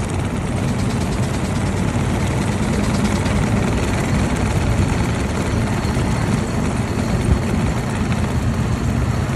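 1903 Cadillac's single-cylinder engine running steadily as the open car drives along, with road and traffic noise mixed in.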